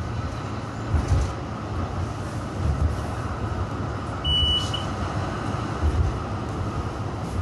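B2-class tram running along its track, heard from inside the passenger saloon: a steady rumble with low thumps every second or two. A brief high beep sounds about halfway through.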